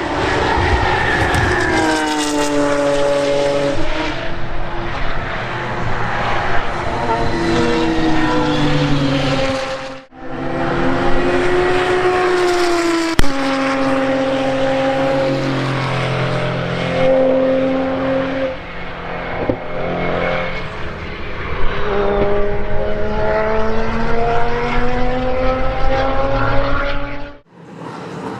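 GT race car engines running hard past the track, in three cut-together passes. Each engine note climbs under acceleration, then steps down in pitch at the gear changes, with a sharp crack about 13 seconds in.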